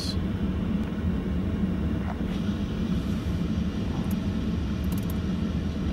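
Steady low rumble inside the cabin of a 2007 Audi A8 with the W12 engine idling.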